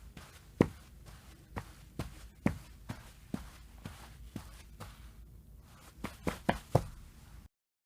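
Footsteps from a running sound effect: separate sharp footfalls, unevenly spaced and mostly about half a second apart, with a quick run of four steps near the end. The recording then cuts off suddenly to dead silence.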